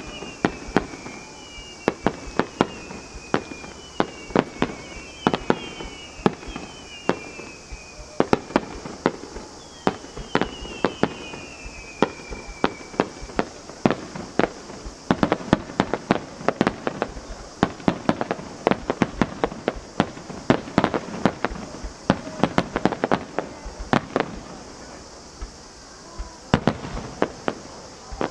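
Extra-large star mine fireworks salvo: shell bursts going off in quick succession, sharp bangs coming thick and fast, densest around the middle and thinning near the end. Falling whistles sound over the bursts during the first half.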